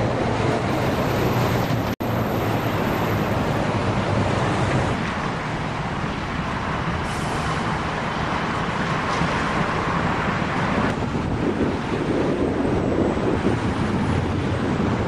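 Steady downtown city traffic noise: cars and buses running past as a continuous rumble, with a momentary dropout about two seconds in.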